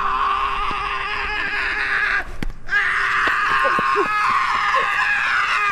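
Loud, sustained screaming in two long stretches, broken by a short pause about two and a half seconds in.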